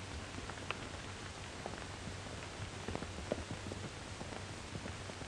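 Soft hoofbeats of two horses walking off, heard under the steady hiss and scattered crackle of an old film soundtrack.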